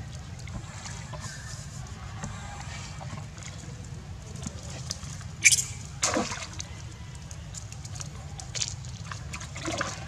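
A macaque gives one sharp, high shriek about halfway through, then a short cry falling in pitch, over a steady low rumble.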